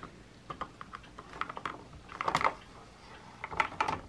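Light plastic clicks and clatter from a Paw Patrol Lookout toy base as the red elevator pod holding a Chase figure is handled and raised up the tower by hand. Scattered single clicks, with two busier runs of clicking about halfway through and near the end.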